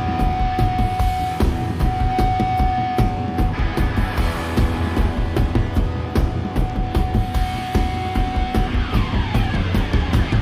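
Rock music with drums and guitar and a steady beat.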